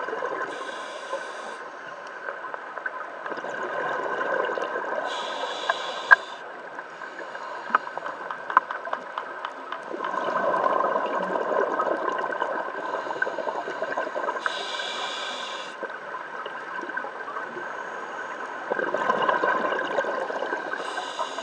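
Scuba regulator breathing underwater: short hissing inhalations alternate with longer bursts of bubbling exhalation, about four breaths, with a faint steady hum and a few sharp clicks between breaths.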